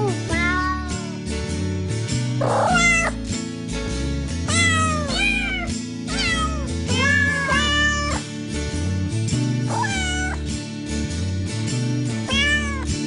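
Novelty music track built from cat meows pitched to a tune: a string of arched, rise-and-fall meows at changing pitches over a backing of bass notes.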